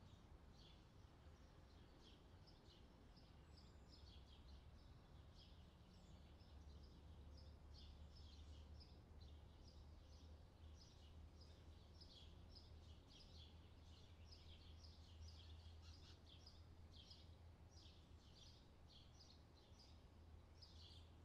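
Near silence: faint, quick high chirping of small birds throughout, over a low steady hum.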